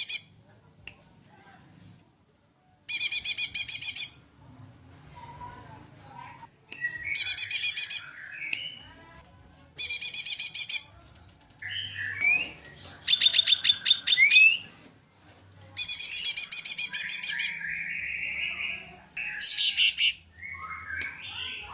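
Cucak jenggot (grey-cheeked bulbul) and kinoi singing. Loud, high, rapidly pulsed trills about a second long come again and again roughly every three seconds, with softer lower chattering and rising whistled notes between them.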